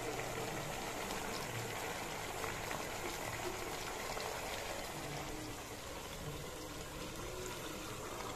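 Spiced chicken and potatoes cooking in masala in an aluminium pot on a gas stove, with a steady sizzle. Near the end, hot water starts pouring into the pot.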